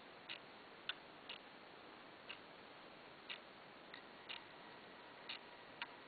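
Hermle mechanical mantel clock movement ticking quietly, about one beat a second. A few sharper clicks fall between the beats, the loudest about a second in.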